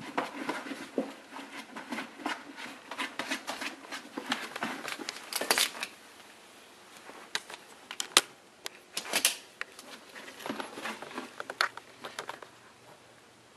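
Dry wood-chip bedding crackling and rustling as it is stirred, in quick irregular bursts that thin out to scattered clicks after about six seconds.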